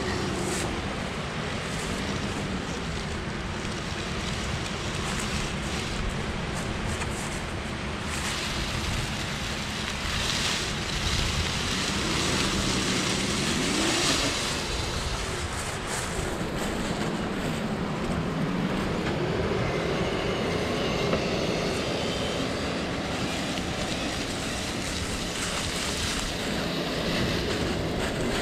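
Axial SCX10 III 1/10-scale RC rock crawler's brushless motor and geared drivetrain whining, the pitch rising and falling repeatedly as the throttle changes, over a steady rushing noise.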